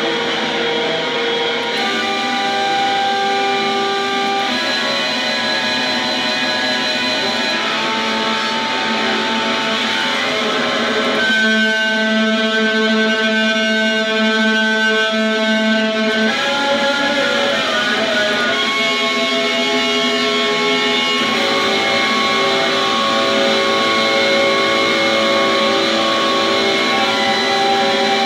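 Electric guitar played with a bow: long held notes and chords that change every few seconds, one chord held for about four seconds near the middle.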